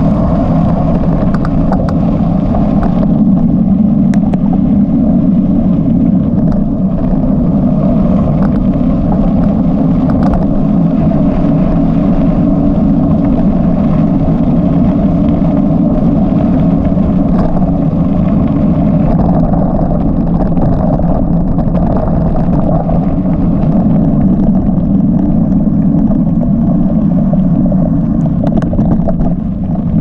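Steady, loud drone of a vehicle travelling along a gravel dirt road, with a few faint clicks scattered through.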